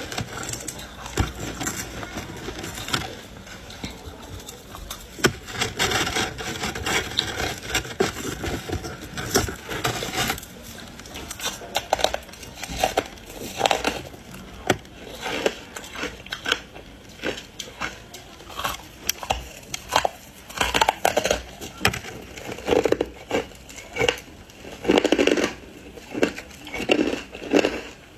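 Close-miked crunching and chewing of ice coated in matcha green tea powder: dense, irregular crackling crunches, with heavier, more spaced bites in the second half.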